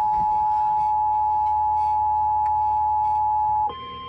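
Emergency Alert System two-tone attention signal, a loud steady dual tone that announces an emergency alert. It cuts off about three and a half seconds in, and a quieter steady tone a little higher in pitch takes over.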